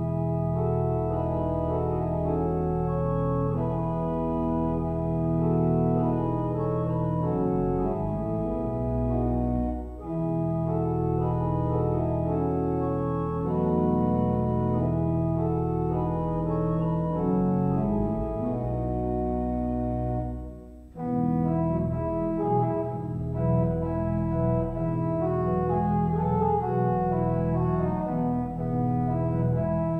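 Church organ playing sustained chords over deep bass notes, with brief breaks in the sound about ten seconds in and again about twenty-one seconds in.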